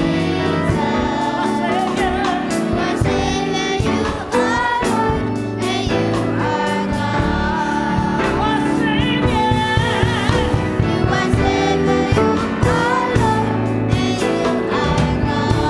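Gospel music: a choir singing with instrumental accompaniment and a run of sharp beats.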